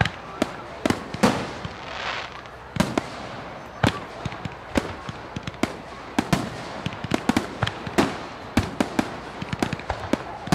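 Fireworks going off: a quick, irregular string of sharp bangs and crackling pops, with a brief hissing crackle about two seconds in.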